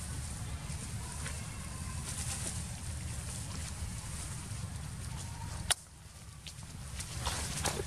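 Outdoor ambience: a steady low rumble and hiss with a few faint, short high chirps. A sharp click comes nearly six seconds in, after which the rumble drops away, and there is more clicking and rustling near the end.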